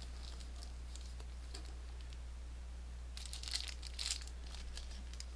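Plastic packaging crinkling and tearing as it is opened by hand, in two faint spells, one near the start and another around three to four seconds in, over a steady low hum.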